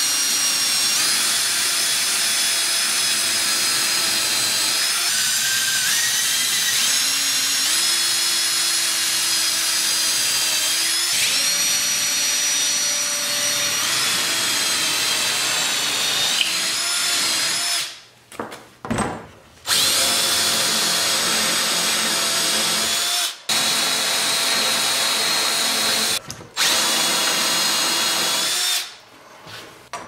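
Cordless drill boring holes into a wooden board: a steady motor whine whose pitch shifts as the bit loads and frees up. After about 18 seconds it stops and starts again several times in short runs.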